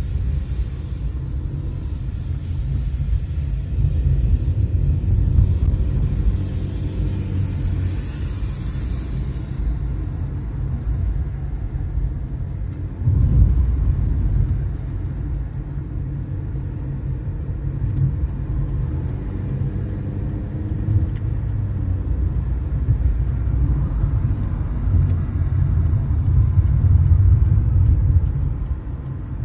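Steady low rumble of a car on the move, heard from inside the cabin: tyre and engine noise while driving on city roads, with a louder jolt about thirteen seconds in.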